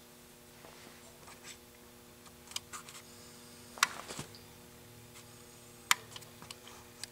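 Scattered small clicks and taps, with two sharp clicks about four and six seconds in, over a faint steady hum.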